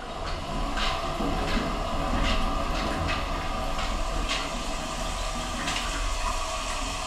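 Hotel shower running at moderate flow, water spraying onto the tiled floor of the stall with a steady rush, a low rumble and a few louder spatters.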